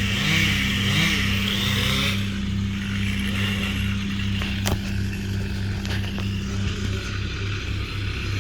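Engine running steadily with an even low pulse. Over it for about the first two seconds is a chainsaw-like cutting noise with a wavering pitch, which then drops away. A single sharp click comes about halfway through.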